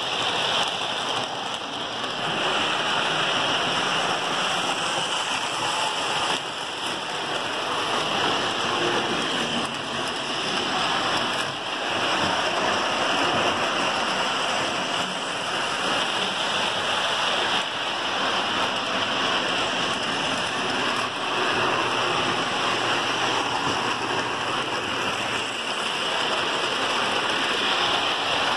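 Lionel O-gauge trains running on three-rail tinplate track: a steady rolling rumble and hiss of metal wheels on the rails, with no breaks.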